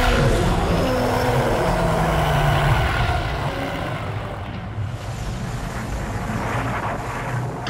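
Horror-film sound effect: a loud, low rumbling drone with wavering tones over it. It starts abruptly and eases after about three seconds into a steadier, quieter rumble.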